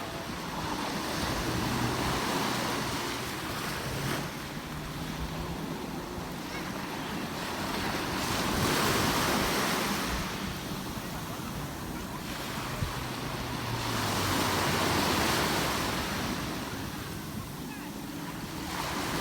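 Sea waves breaking on the shore, the surf noise swelling and ebbing about every six seconds.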